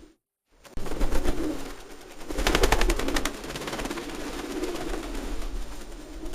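Pigeons cooing in low, repeated phrases, after a brief silent gap at the start. A rapid clatter of sharp claps about two and a half seconds in is the loudest sound.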